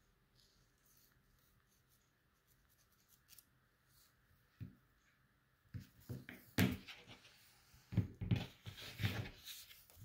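Kitchen knives and food being handled on a plastic cutting board: soft knocks, taps and scrapes. Quiet at first with a single knock about halfway in, then a busy run of knocks and scraping through the second half.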